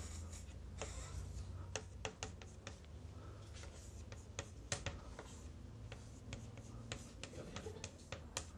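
Chalk tapping and scratching on a chalkboard as formulas are written: irregular sharp taps, some in quick clusters, over a low steady hum.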